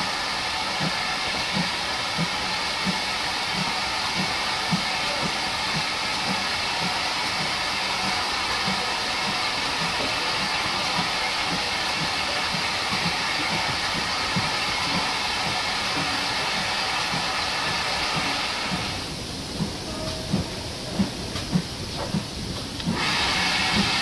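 Steam locomotive blowing off steam close by: a steady hiss with a faint regular ticking underneath. Late on, the hiss stops for a few seconds, leaving a few knocks, then starts again.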